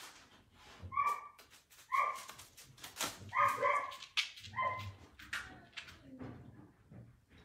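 A puppy barking in short, high yaps, about one a second, growing weaker near the end.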